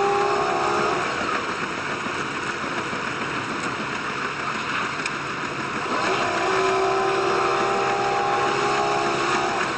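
Diesel railcar running along the track: a steady rushing noise, with a pitched engine note that sounds twice, at the start and again from about six seconds in, each time sinking slightly.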